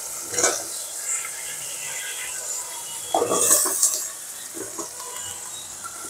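Pieces of tender bottle gourd tipped from a ceramic bowl into a pot of sizzling spice paste. There is a clatter about half a second in, and a louder rattle of pieces landing and knocking about three seconds in, over a steady sizzle.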